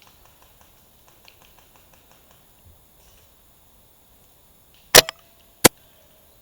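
Two loud, sharp cracks about two-thirds of a second apart from an airsoft gun being worked and fired, the first followed by a brief ring. Before them there are only faint small clicks and rustles.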